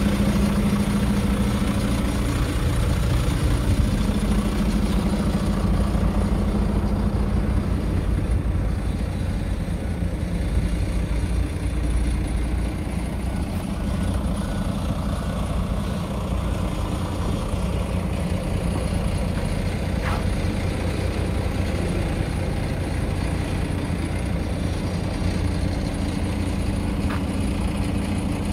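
Scania R 500 tractor unit's 13-litre six-cylinder diesel engine idling steadily.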